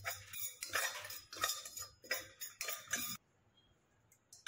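Metal spoon scraping and clinking against a stainless steel saucepan as semolina is stirred while dry-roasting, about three strokes a second. The stirring stops about three seconds in.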